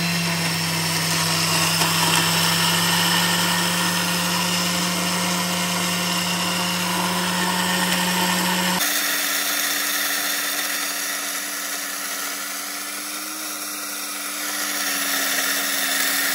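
Electric kitchen blender-grinder motor running steadily, its blade grinding a dry mix of flaxseed, wheat and rice into a coarse meal. The tone of the hum changes abruptly about nine seconds in.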